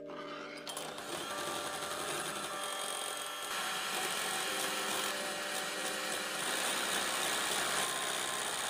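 Electric hand mixer whirring steadily as its beaters whip egg whites in a glass bowl. It starts about half a second in and grows louder about three and a half seconds in.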